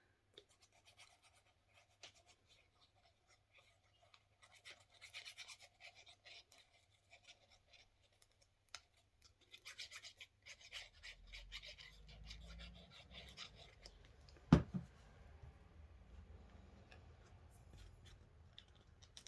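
Paper and card being handled and rubbed on a work surface: light scratching and rustling with scattered small clicks, and one sharp knock about two-thirds of the way through.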